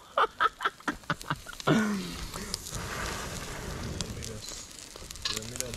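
Charcoal fire under a grill crackling with scattered sharp pops, then a steady hiss from the coals as an armadillo carcass roasts over them and drips fat.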